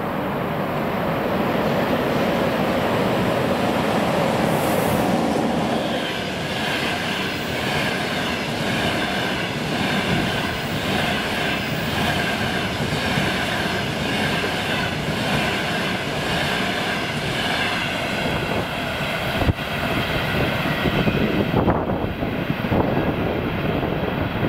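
An EP20 twin-system passenger electric locomotive passes at speed with its passenger coaches running by behind it. From about six seconds in, a high, wavering squeal from the coaches' wheels rides over the rumble and clatter of the wheels on the rails. A single sharp knock comes about three-quarters of the way through as the last coaches go by.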